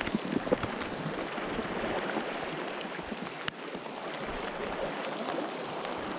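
Steady rain and rushing river water making an even hiss. A few light knocks come near the start, and there is one sharp click about three and a half seconds in.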